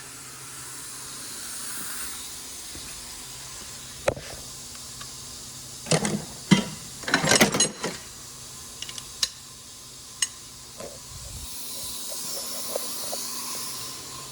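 Scattered metallic clicks and knocks of hand tools being handled at the axle bolt, with a louder cluster of knocks a few seconds in, over a steady hiss.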